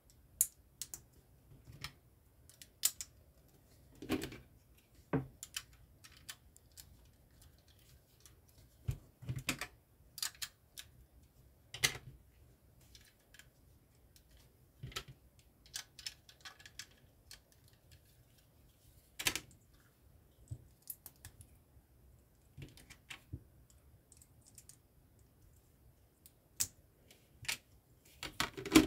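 Plastic LEGO bricks clicking and snapping as they are handled and pressed together. The clicks are sharp and come at irregular intervals, a few seconds apart at most.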